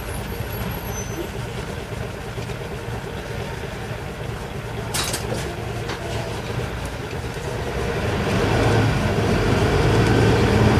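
Isuzu Erga Mio bus's inline-six diesel engine running, heard from inside the passenger cabin as the bus turns, then growing louder from about eight seconds in as it pulls harder. A single sharp tick about five seconds in.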